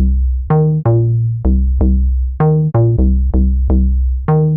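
Electronic outro music: a drum-machine beat with deep bass and short plucked synth notes, about three a second.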